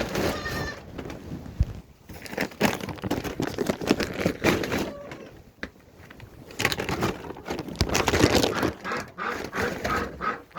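Irregular rustling and crackling, like footsteps and handling in hay, with a short goat bleat about half a second in.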